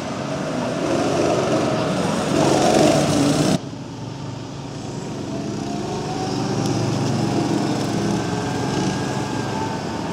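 Go-kart engines running as the karts drive past on the track, the engine note rising and falling. The sound cuts abruptly to a quieter engine note about three and a half seconds in.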